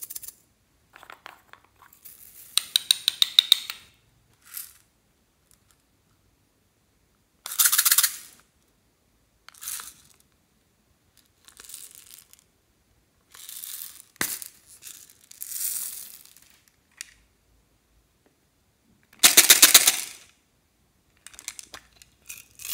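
Small plastic toy cases clicking open and their loose plastic beads rattling and tipping out. The sound comes in short separate bursts of rapid clicking, with silence between them, and the loudest bursts are near the start, about eight seconds in, and near the end.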